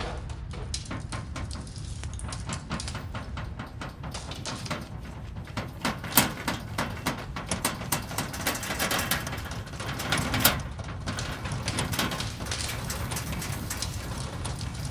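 Earthquake rumble sound effect: a steady deep rumble overlaid with dense rattling and crackling, with two sharp louder cracks about six and ten and a half seconds in.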